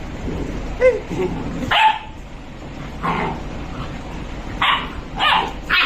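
Dogs barking in a play fight: about six short barks and yips, spaced out, with a cluster of three near the end.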